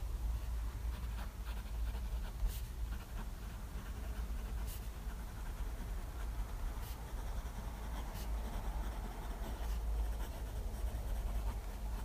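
Pilot Custom 823 fountain pen's medium gold nib scratching softly across smooth 90 gsm Rhodia paper in continuous handwriting strokes. A few faint clicks sound along the way, over a low steady hum.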